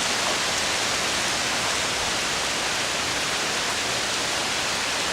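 Heavy rain pouring down in a steady, even hiss: a torrential downpour during a thunderstorm.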